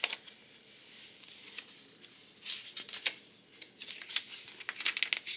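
A paper page of a picture book being lifted and turned by hand, with crisp rustling that starts about halfway through and grows busier near the end.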